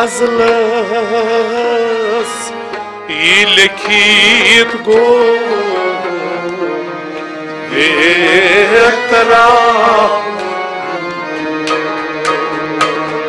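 Kashmiri folk song: a male voice sings long, wavering, ornamented phrases over a drone of string instruments. Sharp hand-drum strokes come in near the end.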